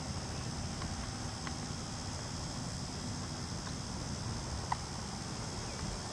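Steady high-pitched insect buzzing, crickets or similar, over a low rumble, with a few faint short chirps, the clearest about three-quarters of the way through.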